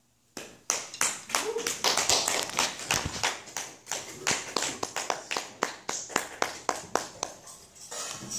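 A small audience clapping, starting about half a second in, with individual sharp claps standing out.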